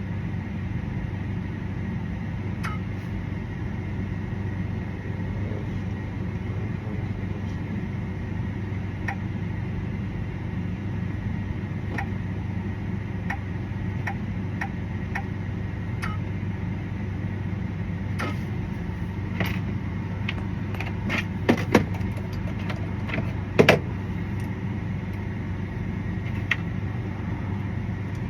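Steady low mechanical hum with light clicks every second or so, and a short run of sharper clacks and knocks about twenty seconds in.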